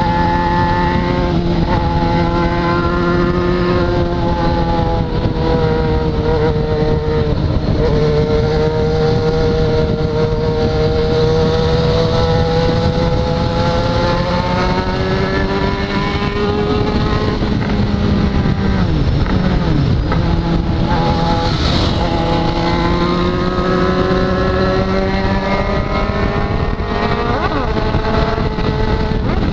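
Yamaha XJ6's 600 cc inline-four engine running at a steady highway cruise under heavy wind and road noise. Its pitch dips and climbs again about two-thirds of the way through as the rider eases off and then accelerates.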